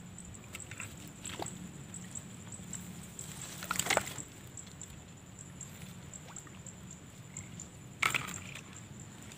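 Quiet handling sounds of an angler baiting and readying a fishing pole: light clicks and rustles, with two louder brief noises about four and eight seconds in. A steady high-pitched whine and a low hum run underneath.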